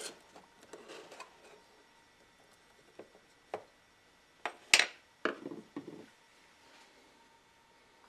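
Objects being handled on a workbench: scattered light clicks and taps, a single sharp knock a little before five seconds in, then a brief patch of rustling.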